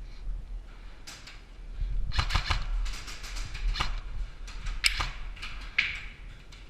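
Airsoft replicas firing: a quick run of sharp clacks about two seconds in, then scattered single shots.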